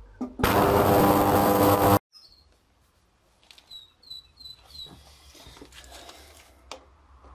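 Ultrasonic cleaner running with carburettor parts in its tank: a loud, steady buzzing hiss for about a second and a half that cuts off abruptly. Afterwards, four faint short bird chirps.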